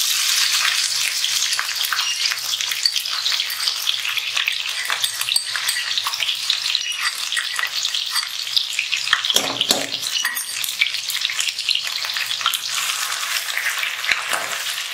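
Chopped onion, green chilli and ginger-garlic paste sizzling in hot oil in a kadhai, a steady crackling fry, with a slotted spatula stirring it near the end.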